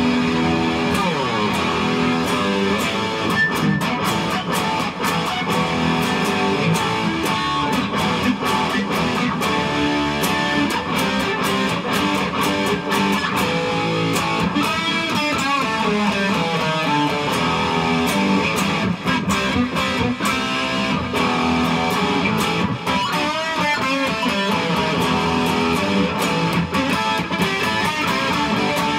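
Electric guitar played with a pick, a continuous run of strummed chords and picked notes.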